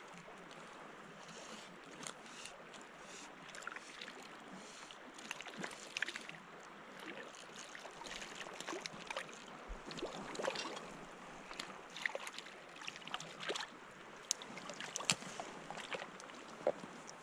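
Small river running, its water gurgling steadily with many short, irregular splashes and trickles.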